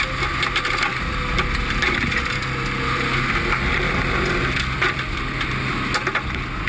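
Irregular cracking and crunching clicks of car wreckage being handled, over a steady engine hum.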